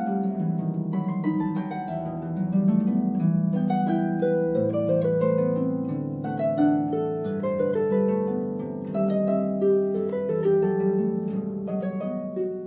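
Background music: a light tune of plucked notes over lower held notes.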